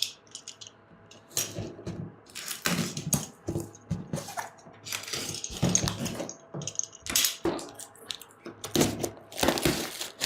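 Irregular clicks, knocks and scraping rustles of a cardboard box being handled and opened.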